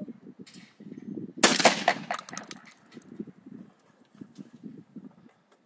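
Shotgun firing about a second and a half in: a loud blast that trails off over about a second.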